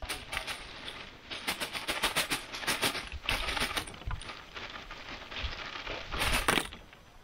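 Charcoal fire in a barbecue pit crackling and popping, a steady run of sharp snaps with denser bursts about two seconds in and again near the end.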